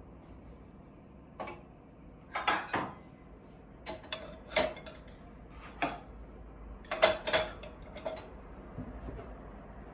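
Light clinks and knocks of hard objects being handled, about a dozen in irregular clusters, several with a short ring. The loudest come in a quick cluster about seven seconds in.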